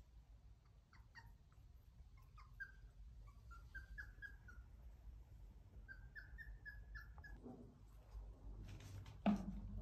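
Young puppies whimpering: a faint run of short, high-pitched squeaks, one after another for several seconds. A short, louder thump comes near the end.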